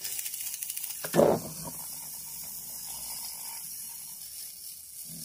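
Clockwork wind-up motor of a Mego Buck Rogers walking Twiki toy running with its case open, the spring unwinding through the gear train in a fast, steady high whir. It has just been sprayed with WD-40 and sounds much better, though some part still seems to drag.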